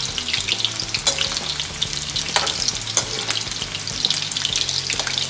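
Batter-coated chicken pieces deep-frying in hot oil in a kadhai on low heat: a steady, dense crackle of sizzling and tiny pops. A few sharp clicks from a slotted spoon knocking against the pan as the pieces are moved.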